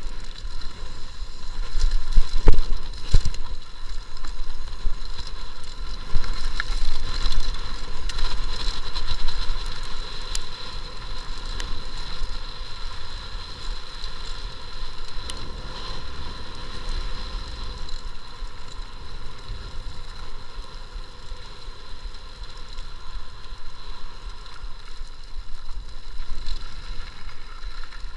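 Mountain bike coasting fast downhill on a dirt trail: tyres rumbling over the ground and the bike rattling, with a steady high buzz underneath throughout. A couple of hard knocks come from the bike hitting bumps about two and a half to three seconds in.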